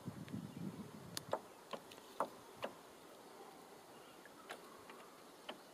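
A canoe on a lake: a soft swish of water at the start, then faint, irregular clicks and light knocks, about five in the first three seconds and two more later, as from water and the paddle against the hull.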